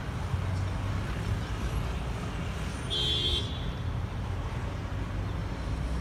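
Low, steady rumble of distant engines, with a brief high-pitched tone about halfway through.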